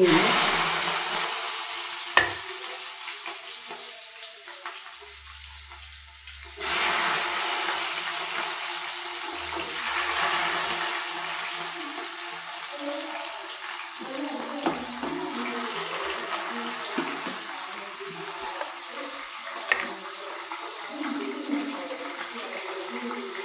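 Chopped onions sizzling in hot oil in a kadai: a loud hiss that starts the moment they go in and slowly dies down, then surges again about seven seconds in. A few sharp clicks sound through it.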